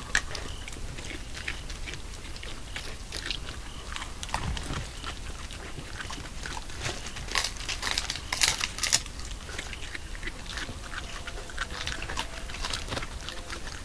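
Irregular crunching, cracking and clicking of animals chewing and rummaging among dry bones and litter, with a cluster of louder crunches about seven to nine seconds in.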